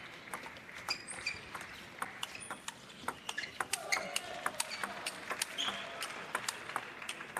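Table tennis rally: the ball clicking sharply off bats and table in a quick, irregular series of hits and bounces.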